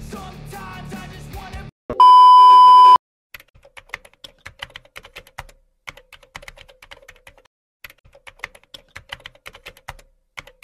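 Rock music cuts off, then a loud steady beep tone sounds for about a second. A keyboard-typing sound effect follows: rapid clicking keystrokes in short runs with brief pauses, as a caption types itself onto the screen.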